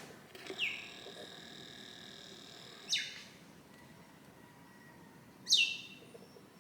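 A bird calling outdoors: three sharp calls spaced about two and a half seconds apart, each sweeping quickly down in pitch, over a faint steady background of other high calls.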